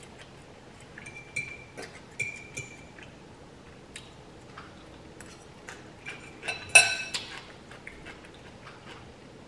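Metal fork clinking against a glass bowl several times, each clink ringing briefly. The loudest clink comes about seven seconds in, with soft small clicks of utensils and food between.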